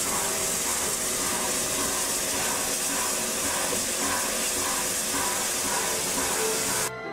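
Steam locomotive letting off steam from its cylinder drain cocks: a loud, steady hiss that cuts off abruptly near the end.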